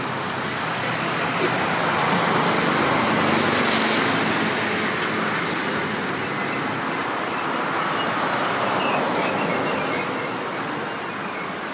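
Steady road traffic noise, swelling twice as vehicles pass.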